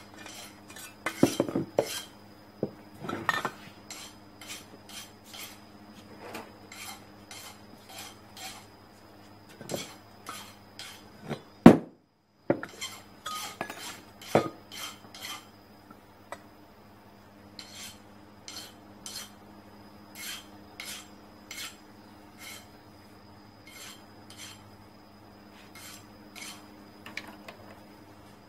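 Steel pipe sections of a shop-built glasspack muffler being handled on a workbench while fiberglass packing is wrapped around them: irregular clinks and knocks of metal on metal and on the bench, the loudest knock about halfway through, over a faint steady hum.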